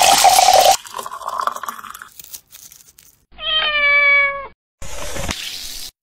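Fizzy soda poured over ice in a glass for the first second or so. A little past the middle, a domestic cat gives one drawn-out meow, about a second long and dropping slightly in pitch. A short hiss follows near the end.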